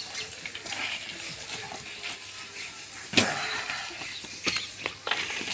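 Small spade scraping and scooping dry, lumpy clay soil into a metal pan, with scattered scrapes and clicks. There is one louder knock a little after three seconds in.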